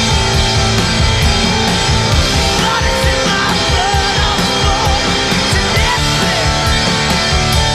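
Rock band playing loudly: electric guitar and a drum kit with cymbals, with a man singing through the middle of the passage.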